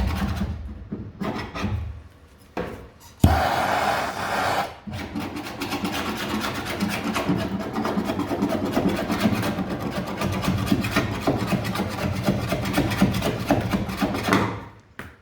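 Heat-softened body filler being scraped off a car's steel wheel arch, a continuous rasping scrape made of many short strokes. A short hiss about three seconds in.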